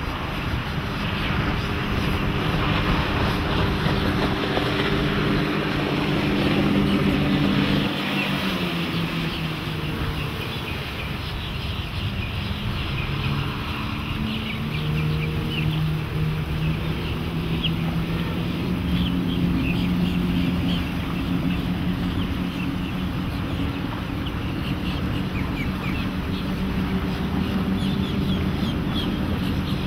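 Twin Mercury 225 HP four-stroke outboard engines running with the boat under way, over a steady rush of wind and water. The engine pitch falls briefly about eight seconds in, then rises again.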